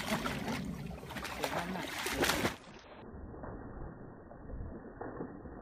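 Two dogs splashing and stepping about in shallow, muddy pond water, a rapid run of splashes loudest in the first two and a half seconds, then quieter.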